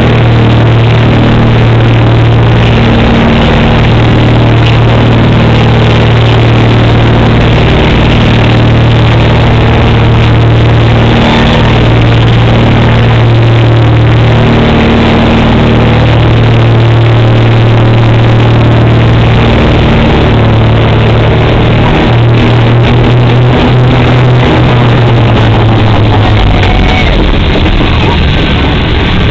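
The piston engines and propellers of a Britten-Norman Trislander, a three-engined airliner, running loud and steady through the approach and landing rollout. Near the end the steady engine note wavers and fades out, and a lower rumble takes over.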